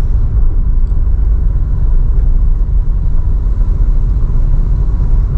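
Car being driven, a steady low rumble of road and engine noise.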